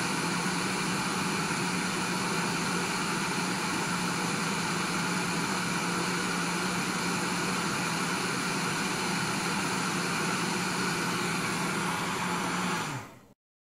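Gas-canister camp stove burner running with a steady hiss and a low hum under a pot of heating water, fading away quickly near the end.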